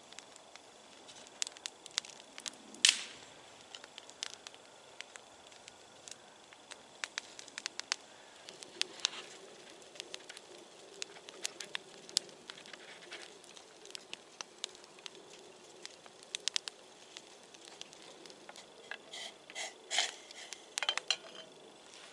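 Small campfire of split birch logs crackling, with irregular snaps and pops. One sharp pop about three seconds in, and a brief run of louder snaps near the end.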